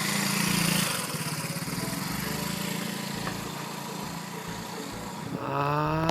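Small scooter engine running steadily with a low hum, a little louder in the first second, from the toy Vespa scooter.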